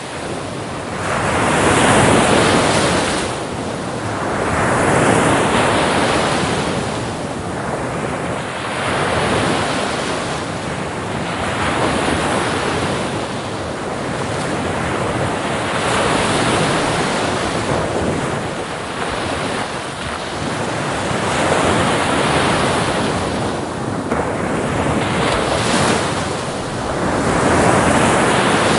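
Sea waves breaking and washing in, a steady rushing surf that swells and falls back every two to four seconds.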